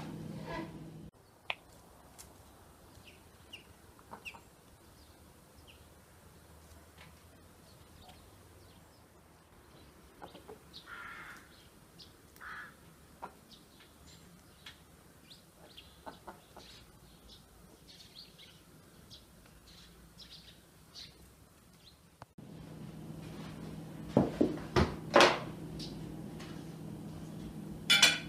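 Domestic chickens clucking now and then, faint, with small birds chirping. Near the end, a steady indoor hum and a few sharp knocks of kitchenware being handled.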